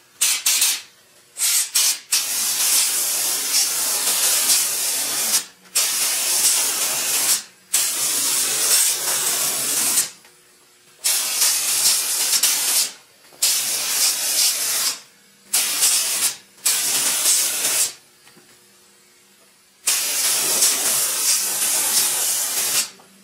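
Compressed-air gravity-feed spray gun spraying primer onto a car fender: a hiss of atomising air that starts and stops with the trigger, a few short blips at first, then about eight passes of one to three seconds each with short pauses between.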